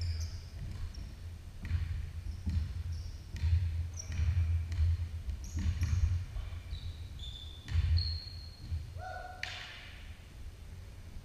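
A basketball bouncing with repeated thuds on a hardwood gym floor, mixed with short high sneaker squeaks, the louder squeak about nine seconds in, echoing in a large hall.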